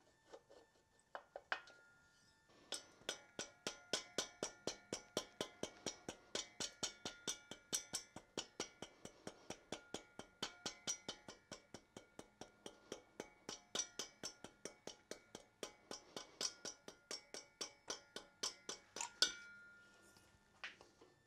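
A mallet tapping repeatedly on a Porsche 912 engine's cylinder head to knock it loose, about three to four blows a second with a short metallic ring after each. A couple of single taps come first, and the run ends with one harder blow.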